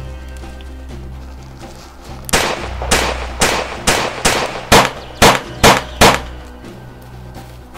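Soundtrack music with a low drone. About two seconds in, a rapid string of about nine pistol shots starts, roughly two a second, and stops about six seconds in.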